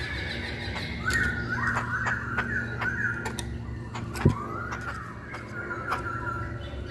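Masked laughingthrush (poksay Hongkong) singing: a run of short whistled notes, then an arching whistle and a few level notes. Sharp clicks are scattered through it, a single loud thump comes about four seconds in, and a steady low hum runs beneath.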